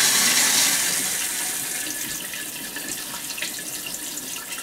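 RV toilet flushing on city water pressure: water rushes into the bowl and down the open ball-valve drain, rinsing out the pink RV antifreeze. The rush is loudest at first and tapers off gradually.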